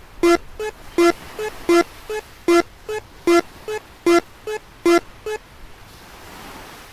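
Japanese railroad-crossing alarm from a cartoon: an electronic bell dinging in an alternating two-tone pattern, a louder lower ding then a softer higher one, about two and a half strikes a second. It rings fourteen times and stops about five and a half seconds in.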